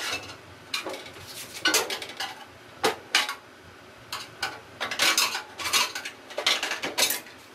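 Metal parts and tools clinking and rattling against the sheet-metal fan shroud and alternator of an air-cooled VW engine as they are handled and fitted. The clinks come in irregular clusters of short, sharp strokes.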